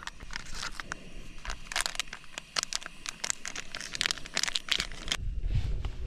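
Foil milk sachet crinkling and tearing as it is opened, a dense run of sharp crackles. They stop abruptly about five seconds in, giving way to a low rumble.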